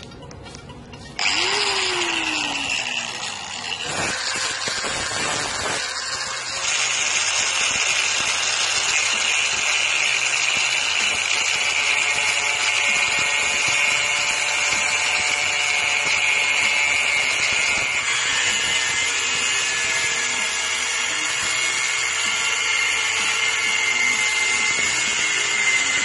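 Angle grinder with an abrasive cutting disc, switched on about a second in, then cutting into the steel shell of a refrigerator compressor: a steady, high-pitched grinding that grows louder about six seconds in as the disc bites.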